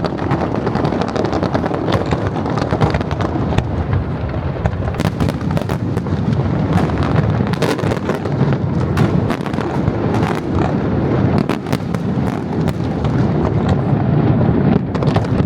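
Aerial fireworks display: a dense, continuous rumble of bursts with many sharp cracks and crackles packed close together.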